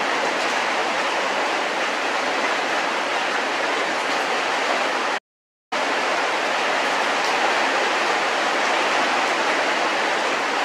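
Steady, even rushing noise with no tone or rhythm, which cuts out completely for about half a second just after five seconds in.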